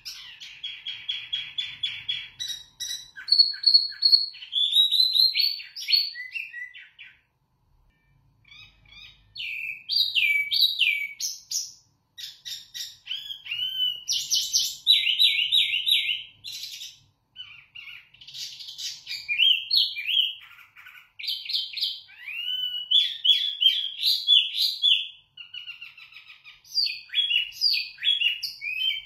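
A caged wambi mini songbird singing a loud, clear, varied song of rapid chirps, trills and whistled slides, broken by a couple of short pauses.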